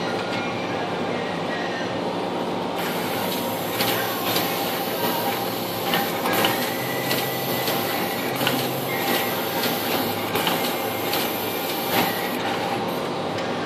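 Assembleon Emerald-X II SMT pick-and-place machine running: a steady mechanical hum, joined about three seconds in by a high hiss and rapid, irregular clicks as the placement heads move and set components, until shortly before the end.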